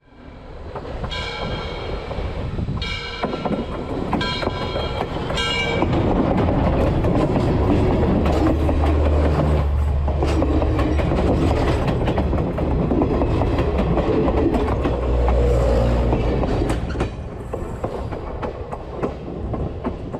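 Train sounding its horn in four short blasts, then passing directly overhead: a heavy rumble with wheels clicking over the rails that swells in the middle and eases off near the end.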